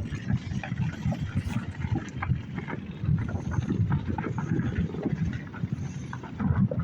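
Many fireworks going off all around at once: a continuous, irregular run of distant bangs and pops, with wind buffeting the microphone.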